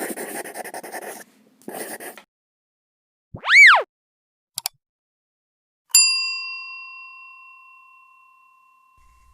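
Edited intro sound effects: two short whooshing noise bursts, a quick tone that rises and falls, a click, then a single bell-like ding that rings out and fades over about three seconds.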